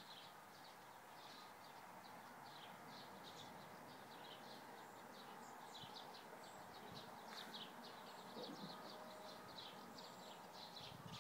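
Faint chirping of small birds: many short, high chirps that keep coming at an uneven pace, over a low background hiss.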